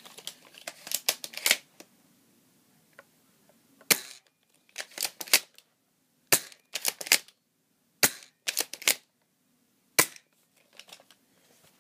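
BB shotgun fired again and again at close range: a string of sharp cracks at irregular intervals, some followed closely by quicker clicks.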